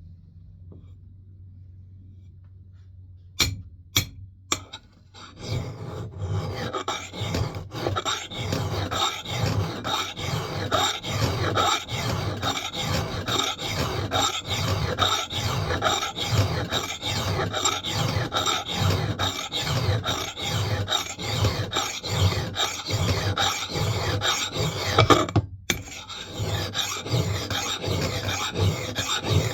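Steel file rasping across the bit of a Mann Edge Tool Company knot clipper axe head in steady back-and-forth strokes, about two a second. A few sharp clicks come first, and the filing stops briefly near the end before starting again.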